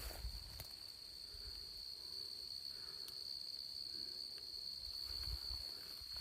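Steady high-pitched insect drone, like crickets or cicadas in summer grass, holding one pitch without a break, with a low rumble of wind or handling on the microphone underneath.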